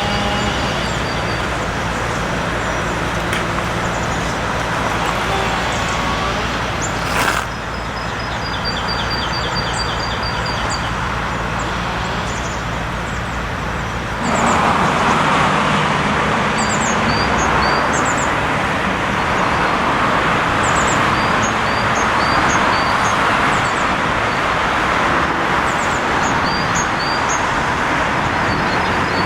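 Steady rumble of vehicles and machinery, with a single sharp knock about 7 seconds in and birds chirping repeatedly over it. The sound changes abruptly about halfway through, becoming brighter and louder.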